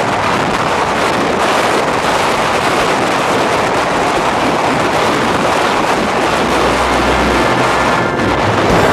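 Storm wind at a high-altitude mountain summit buffeting the camera microphone: a loud, even rushing noise, with a heavier low gust about two-thirds of the way through.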